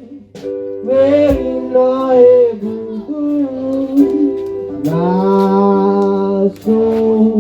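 Worship music: a voice singing long held notes over instrumental accompaniment.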